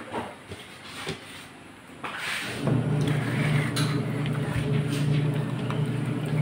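Washing machine motor humming steadily, stopping and then starting up again about two and a half seconds in, as the wash agitator cycles. A few light clicks of dishes and cutlery come in the pause before it restarts.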